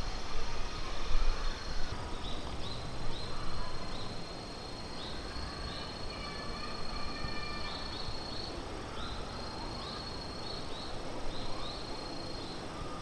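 Outdoor ambience with a short, high chirp from a small animal repeating about two or three times a second, over a steady background noise.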